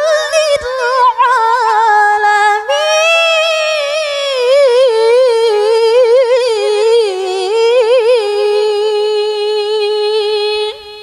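A woman reciting the Quran in melodic tilawah style, sung into a microphone as one long ornamented phrase. The pitch rises to a higher passage about three seconds in, wavers through quick melismas, then sinks to a long held note that breaks off just before the end.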